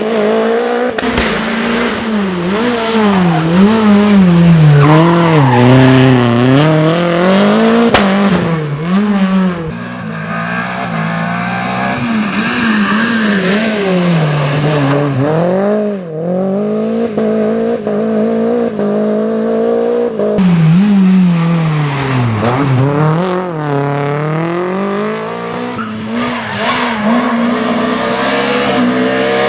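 Renault Clio Williams rally cars' four-cylinder engines revving hard, the pitch climbing and dropping again and again through gear changes and braking, in several short clips cut together.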